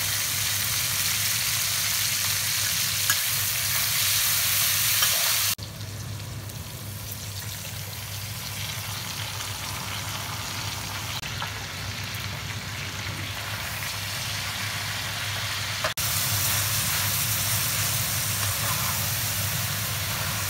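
Cured pork, fish mint roots and green garlic sizzling in a hot wok while being stirred with a spatula. The sizzle drops abruptly about five seconds in and comes back louder near sixteen seconds.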